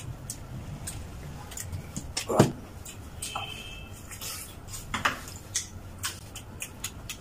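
Close-up eating sounds of two people chewing and gnawing pork ribs by hand: a string of short wet smacks and clicks, with louder smacks about two and a half seconds in and again about five seconds in.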